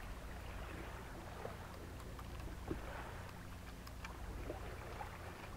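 Quiet open-water ambience around a boat: a steady low rumble with water lapping at the hull, and a few faint short calls and ticks in the distance.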